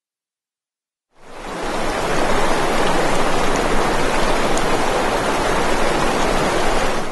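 Silence, then a steady rushing noise like heavy rain or static fades in about a second in, holds evenly, and cuts off abruptly at the end.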